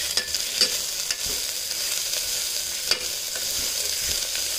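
Mixed vegetables sizzling in hot oil in a steel pressure cooker while being stirred with a perforated metal spatula, which scrapes against the pot a few times.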